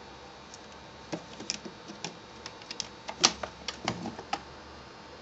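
Young crows pecking and tapping with their beaks right by the microphone: a run of irregular sharp taps and clicks, about a dozen of them, starting about a second in and stopping shortly before the end, the loudest near the middle.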